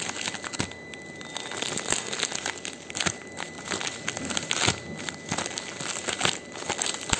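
Thin white plastic packaging crinkling and rustling as hands pull and fold it open, in dense irregular crackles.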